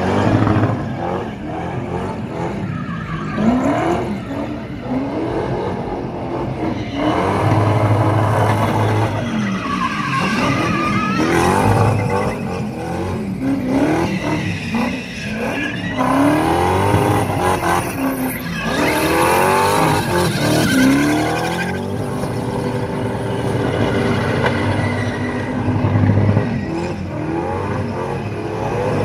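V8-engined Ford Sierra spinning on a skid pan: the engine revs up and down again and again at high revs while the rear tyres squeal on the tarmac. The tyre squeal is heaviest in the middle stretch.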